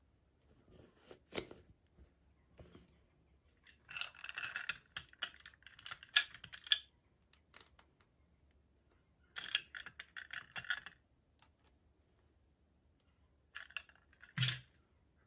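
Hands opening small toy packaging: three bursts of crinkling, rustling wrapper with scattered light clicks and taps, the loudest a sharp tap near the end.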